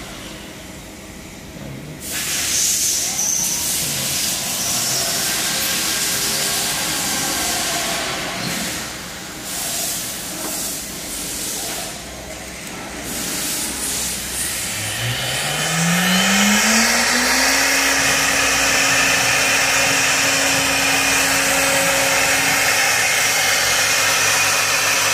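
Three-head CNC router being test-run: its pneumatics hiss with compressed air from about two seconds in, rising and falling. About fifteen seconds in a spindle motor spins up with a rising whine and then holds a steady pitch, with the air hiss going on under it.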